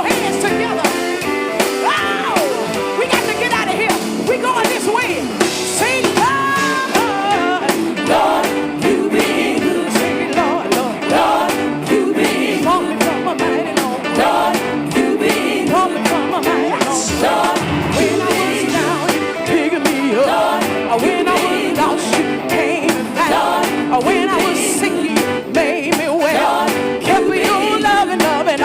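Live gospel praise music: a lead singer over a full band with a steady drum beat.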